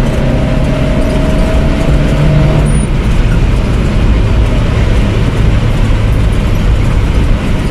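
In-cabin engine and road noise of a Maruti Gypsy's four-cylinder petrol engine running hard at speed. The engine note changes about three seconds in.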